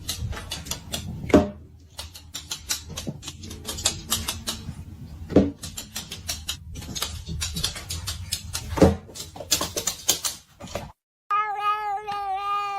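Irregular clicks and scratchy taps with three louder thumps, then, after a cut, a domestic cat meowing in one long, drawn-out call near the end.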